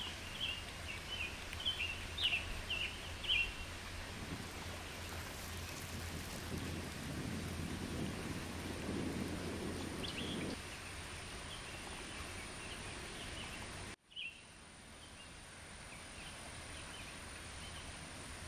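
Wind buffeting the microphone over open water, a steady rumble and hiss, with a few short high chirps in the first few seconds. The sound drops out suddenly about fourteen seconds in, then goes on quieter.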